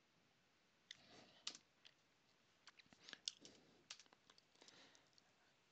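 Faint computer keyboard typing: scattered, irregular key clicks as a command is entered.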